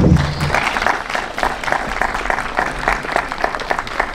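Audience applauding, a steady patter of many hands clapping. A short low thump at the very start is the loudest moment.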